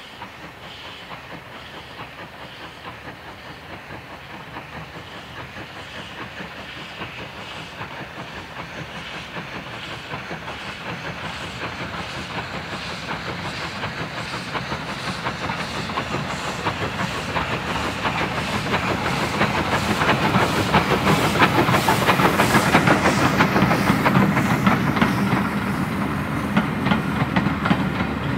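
Caledonian Railway 812 Class 0-6-0 steam locomotive No. 828 hauling a passenger train, its chuffing exhaust beats growing steadily louder as it approaches and passes. Near the end the coaches roll past with a clickety-clack of wheels over the rail joints.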